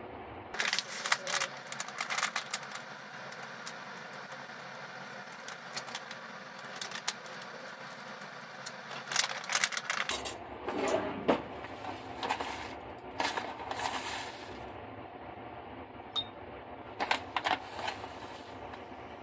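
Scattered clicks, light knocks and rustles of small items being handled on a tabletop, with a plastic pouch of citric acid crinkling near the end. A steady low background hum runs under it.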